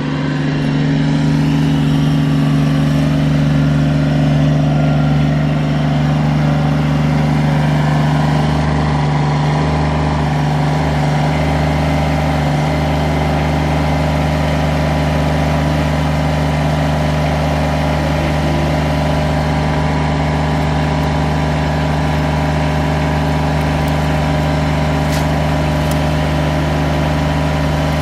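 Kubota compact tractor's diesel engine running steadily, a constant hum at one engine speed.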